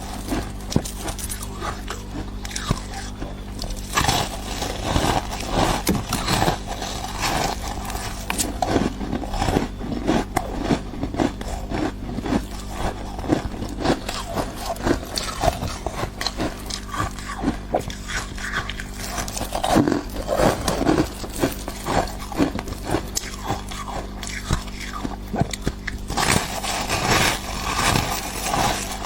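Close-up biting and chewing of thick, crumbly freezer frost ice: a dense, irregular run of crisp crunches and crackles.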